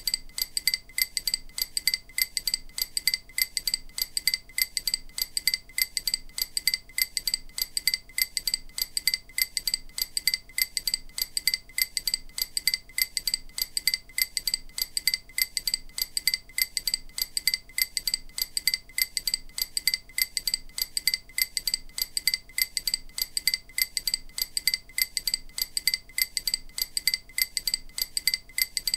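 EMDR bilateral-stimulation audio: a short, high, glassy metallic ping repeated at an even, rapid pace, a few times a second. It is the kind of auditory cue meant to alternate between the left and right ears.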